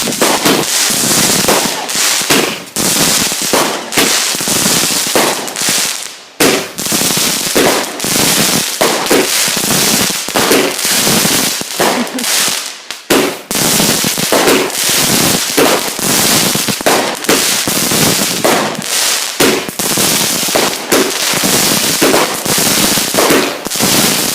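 Fireworks going off in a rapid, continuous string of loud bangs and crackles, with brief gaps about six and thirteen seconds in.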